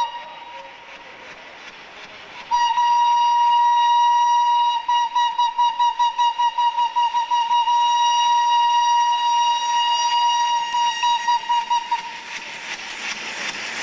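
Steam whistle of FS Gr.981 rack tank locomotive 981.005, one clear note: faint at first, then a loud long blast from about two and a half seconds in that flutters rapidly twice and cuts off about twelve seconds in. After that the locomotive's steam exhaust rises as a hiss.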